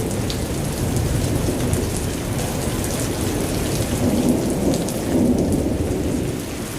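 Thunderstorm: steady rain with a continuous low rumble of thunder and scattered sharp ticks of drops.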